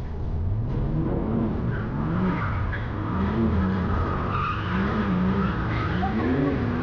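Mercedes-Benz engine revving up and down over and over while its tyres squeal in a drift, heard from inside the car.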